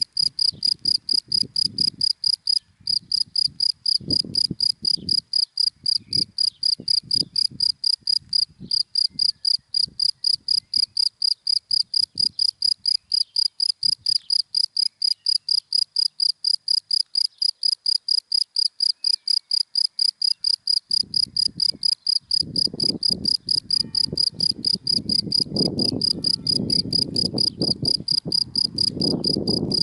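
A cricket chirping in an even, fast rhythm of about four to five high chirps a second, broken by two short pauses near the start. Underneath, a low rumble of passing car traffic comes and goes and swells from about two-thirds of the way in.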